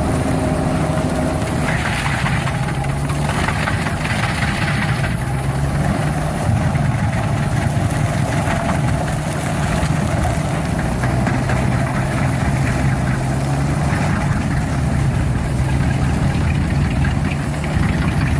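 Engine of a heavy stump-cutting machine running steadily at a constant speed, with a rougher, noisier stretch a couple of seconds in.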